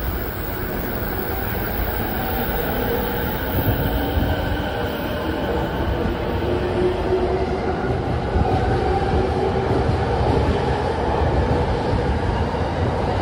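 Tokyo Waterfront Area Rapid Transit 70-000 series electric train pulling out of the station. Its motor whine rises slowly in pitch as it gathers speed, over a steady rumble of wheels on the rails that grows a little louder.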